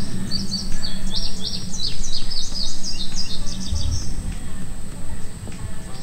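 A songbird calling a rapid run of short, high chirps for about four seconds, then stopping.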